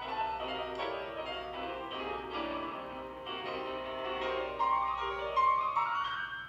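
Two grand pianos playing a classical duo passage together, with a line climbing in pitch over the last two seconds before the sound breaks off right at the end.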